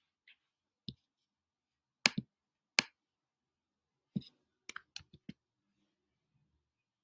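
About ten short, sharp clicks or taps at an irregular pace: one about a second in, two loud ones around two and three seconds in, then a quick cluster of five just before and after five seconds in.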